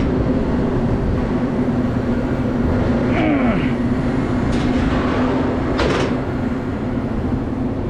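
Walk-in freezer condensing unit running with a steady hum and machine noise, with a few short knocks partway through.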